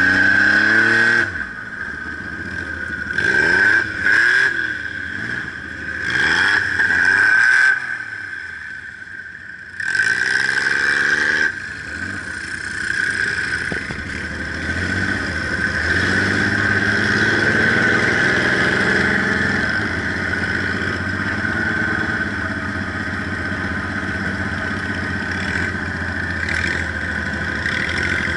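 Dune buggy engine heard from the driver's seat, revving up and falling back again and again as the buggy accelerates and slows, then running more steadily from about twelve seconds in.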